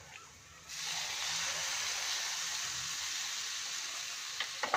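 Hot frying pan sizzling as lemon juice hits the fried sweet potato cubes: a steady hiss that starts suddenly under a second in.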